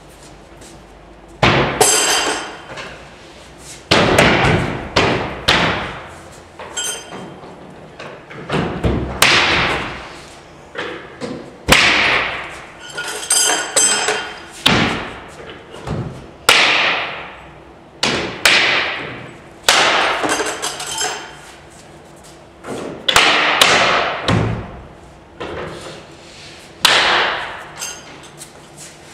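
Steel Clip-Lok clips being snapped shut over the edges of a plywood box's panels: about a dozen sharp knocks and clacks at irregular intervals, some in quick pairs, each ringing on briefly afterwards.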